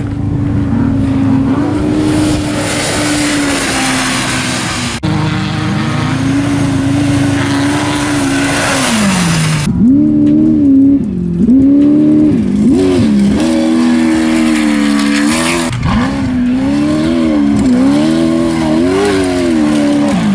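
Off-road race vehicle engine revving hard, its pitch climbing and dropping again and again with throttle and gear changes over a loud rushing noise. The sound changes abruptly twice, about five seconds in and near three-quarters of the way through.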